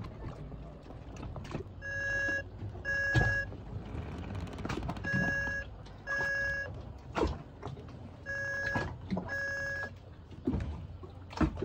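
Telephone ringback tone from the Iridium GO! exec satellite hotspot's speaker as an outgoing call connects: three double rings, each two short beeps, about three seconds apart. Low wind rumble and a few handling knocks underneath.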